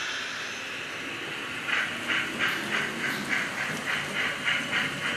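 Model steam locomotive's sound decoder chuffing at about three beats a second, starting about a second and a half in after a fading hiss.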